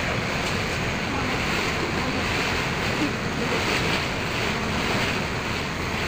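Steady rush of water beside a moving ferry boat, its wake and the waves churning along the hull, with wind blowing on the microphone.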